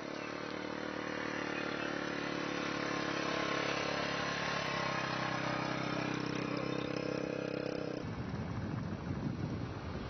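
Motorcycle engine running steadily on the move, its note shifting about halfway through. About eight seconds in the engine note gives way to wind and road noise.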